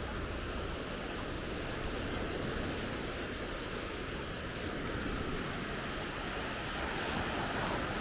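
Baltic Sea surf washing onto a sandy beach, a steady rush of small waves that swells a little louder near the end, with some wind.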